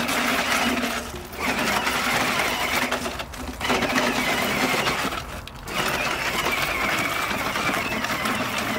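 Electric motor and gearbox of a battery-powered Paw Patrol ride-on toy quad whining as it drives, cutting out briefly three times as the throttle is let go and then picking up again.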